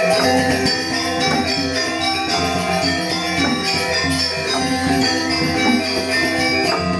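Balinese gamelan music: bronze metallophones ringing in a dense, continuous run of notes that accompanies the Rejang dance.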